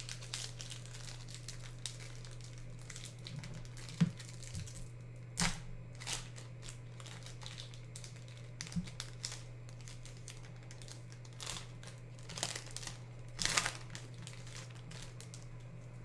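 Yu-Gi-Oh booster pack's foil wrapper crinkling and being torn open, with a few sharper crackles, over a steady low hum.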